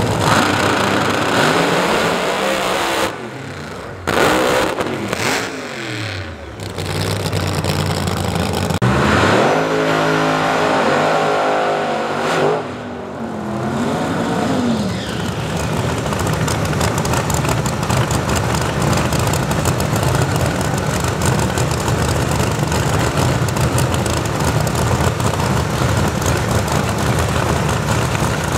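Drag racing cars' engines revving hard, the pitch rising and falling sharply during a burnout. After about fifteen seconds they settle into a steady, rough idle as the cars stage.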